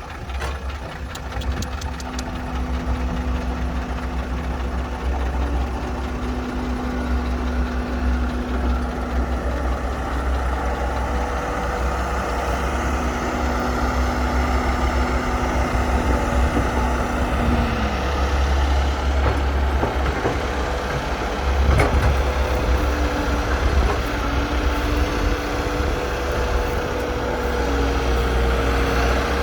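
Excavator's diesel engine and hydraulics running steadily under load, with a steady whine. About 17 seconds in the whine drops in pitch, and a sharp knock comes a few seconds later.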